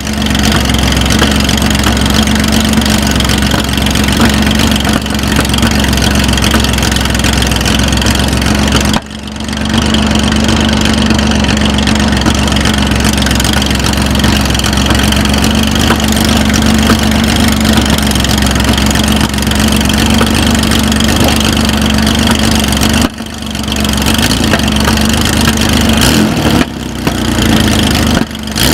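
Porsche 911 2.3 ST's air-cooled flat-six idling steadily at the start line, waiting to launch, with a couple of brief drops in level.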